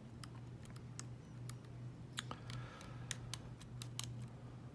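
Light, irregular clicks of a lock pick working the pins of a Falcon small-format interchangeable core (SFIC) cabinet lock during single pin picking, over a low steady hum.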